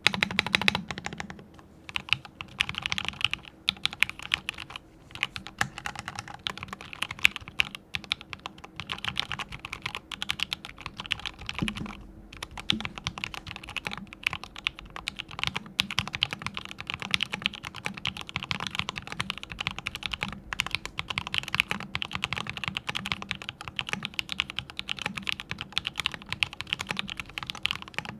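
Mechanical keyboard with fully lubed Gateron Yellow linear switches being typed on fast and without a break, a dense run of keystrokes. Each key gives a rounded 'dogak-dogak' clack, likened to pebbles knocking together.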